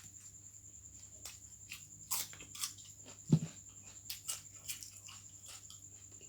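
Close-up eating sounds: chewing with scattered crunches and clicks. A dull thump about three seconds in is the loudest sound. A faint steady hum sits underneath.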